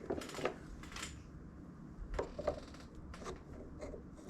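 Light handling noise: scattered soft clicks, taps and rustles of hands working a compressor air hose and its fitting.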